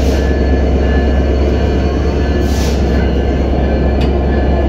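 EMD GT42ACL diesel-electric locomotive's engine running, a loud steady low rumble. Two short hisses come at the start and about two and a half seconds in, and a single click comes near the end.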